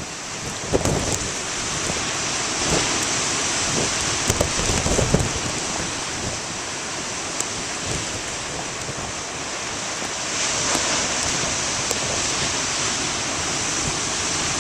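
Ocean surf breaking and washing, stirred up by a nor'easter, mixed with rain and wind buffeting the microphone in low rumbling gusts about a second in and again around four to five seconds in.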